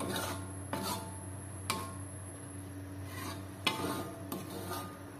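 Metal spatula stirring thick chilli sambal in a wok, scraping and knocking against the pan at irregular moments, roughly once every second or so.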